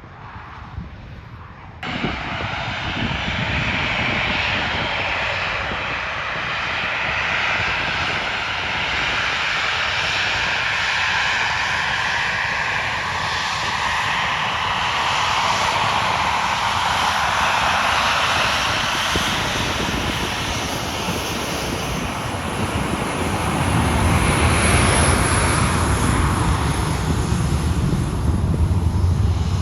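Aircraft engines running loud as a plane passes close by, starting abruptly about two seconds in. A deep low rumble builds in near the end.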